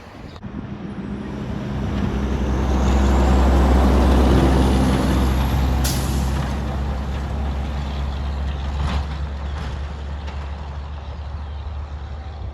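Semi truck's diesel engine running, growing louder over the first few seconds and then slowly fading, with a short sharp hiss about six seconds in.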